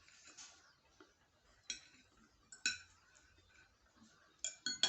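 Cutlery tapping and scraping on a plate as pancakes are cut and eaten: a few light, ringing clinks spaced about a second apart, then a quick run of them near the end.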